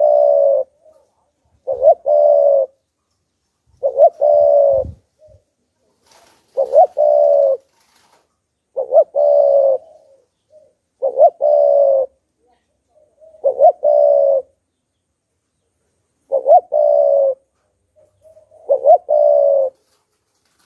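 Spotted dove cooing: each phrase is a quick short note followed by a longer coo, repeated nine times at about two-second intervals.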